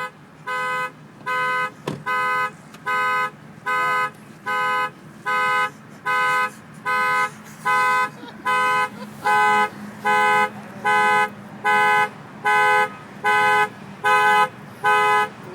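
Car alarm going off, sounding the car's horn in steady, evenly spaced honks, about three every two seconds.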